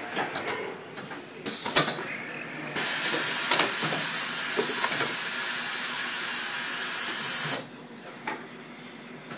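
Automatic screen printing press: knocks and clatter as the squeegee carriage moves, then a loud steady hiss that starts suddenly about three seconds in and cuts off abruptly about five seconds later.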